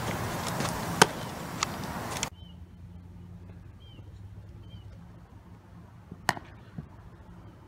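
Sharp cracks of a softball striking a bat or glove in fielding drills: a loud one about a second in, smaller ones after it, and another loud one near the end. Beneath them, outdoor wind-like noise drops off abruptly about two seconds in, leaving a few faint high chirps.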